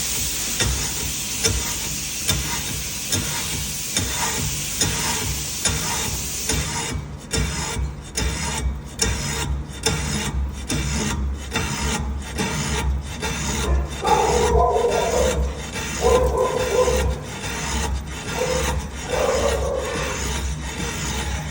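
Machine tool boring out a crankcase's aluminium main bearing housing: a steady metal-cutting scrape over a low motor hum. From about seven seconds in, the scrape pulses evenly, nearly twice a second.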